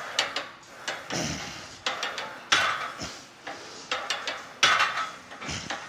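Smith machine barbell clanking on its guide rails during incline bench press reps: sharp metal clanks and rattles roughly once a second.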